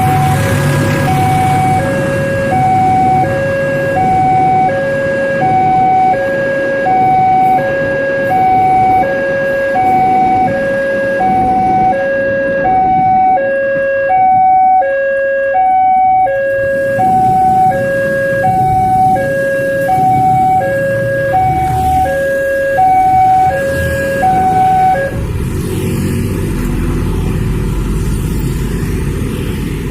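Railway level-crossing warning siren sounding a two-tone high–low alternating wail, each note held about 0.7 s. It stops abruptly about 25 s in, leaving the rumble of passing vehicles.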